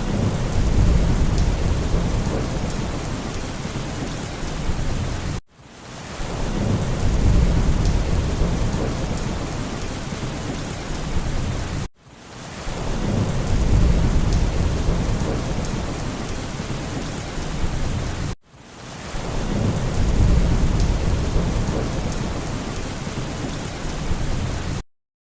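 Rain with rumbling thunder, a short recording played in a loop: about every six and a half seconds it cuts out briefly and restarts, a low rumble swelling up then easing into steady rain. It stops abruptly near the end.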